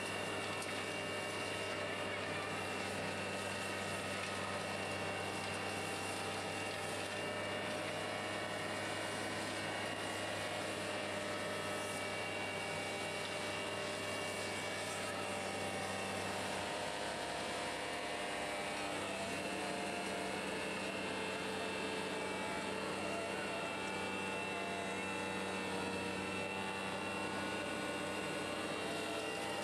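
Hydrovac excavator truck running its vacuum excavation system: a steady mechanical drone with a constant high whine, its low hum shifting about halfway through.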